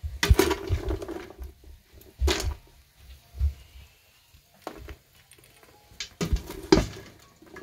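A metal spoon scraping and knocking against a stainless steel pot while stirring and scooping sugar-coated popcorn, in several short clattering bursts with quiet gaps between them. The loudest bursts come just after the start and again about six to seven seconds in.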